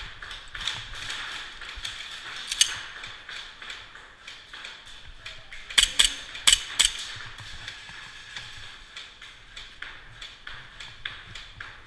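Airsoft guns firing: a steady patter of sharp clicking shots, with one loud close shot about two and a half seconds in and a quick cluster of four loud close shots around six seconds in.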